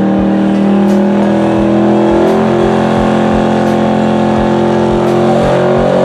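Car engine running close by at a steady speed, with a deep uneven pulse underneath about twice a second.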